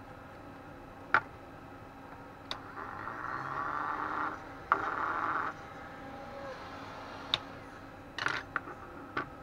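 Hands working a small plastic cooling fan with a thin drill bit on a workbench: scattered sharp clicks and taps, and two stretches of scratchy scraping a few seconds in.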